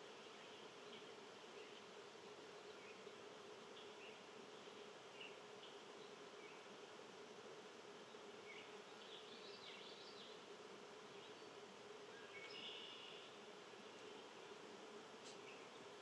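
Faint outdoor ambience: a steady low buzzing hum throughout, with a few brief faint bird chirps around the middle and near the end.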